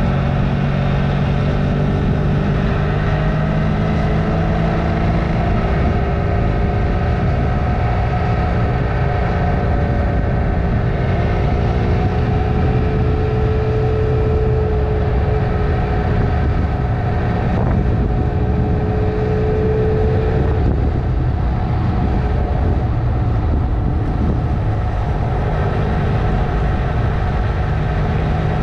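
Honda CMX 500 Rebel's parallel-twin engine running under way on the road, steady and loud, its note climbing slowly and dropping back a couple of times in the second half as the throttle or gear changes.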